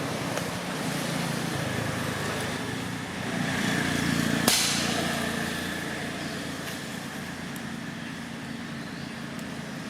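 Road traffic: steady vehicle noise, with one vehicle passing and growing louder about three to five seconds in. A single sharp click comes at its loudest point.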